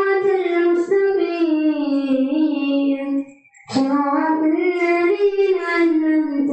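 A child's solo voice, unaccompanied, singing slow melodic phrases of long-held notes. The phrases break for a breath about three and a half seconds in.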